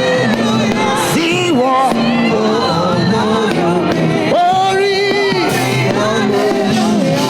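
Live gospel praise music with a lead singer's voice over the band, echoing in a large hall.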